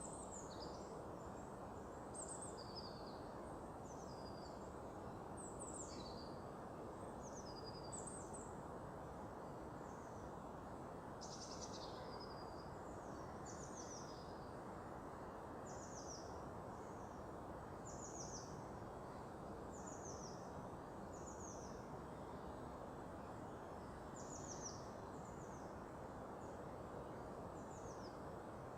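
Small songbirds calling with short, high, downward-sliding notes, one every second or two, over a steady low background hum.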